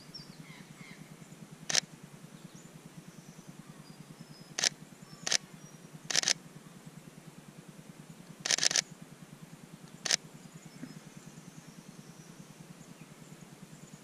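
Sony a7 III mirrorless camera's mechanical shutter firing: single frames and short continuous-shooting bursts, six sharp clicks or click clusters, the longest burst of several frames a little past the middle.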